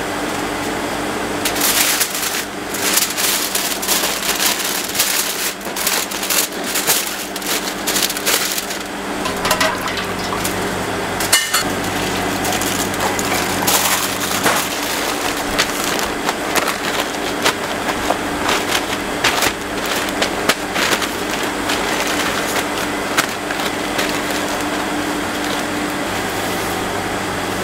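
Aluminium foil crinkling and crackling in irregular bursts as gloved hands fold and scrunch it tightly around a whole chicken, over a steady low hum.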